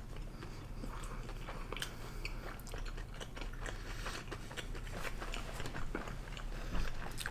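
Close-up chewing and biting of McDonald's chicken nuggets: a steady run of small crunches and wet mouth clicks over a low room hum.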